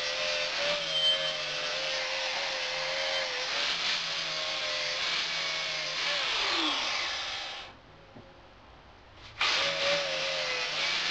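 An electric power tool working on steel: a steady motor whine under a harsh, hissing grind. It dies away about eight seconds in, then starts again abruptly a second and a half later.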